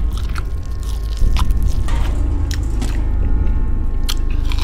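Close-miked ASMR-style eating sounds: chewing with scattered wet mouth clicks and crackles, over a steady low rumble.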